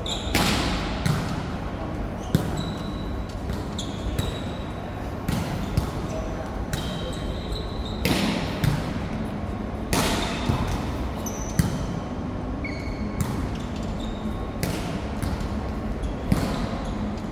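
Ball game on an indoor court: repeated hard thuds of a ball being struck or bounced, mixed with short high squeaks of sneakers on the floor, echoing in a large hall.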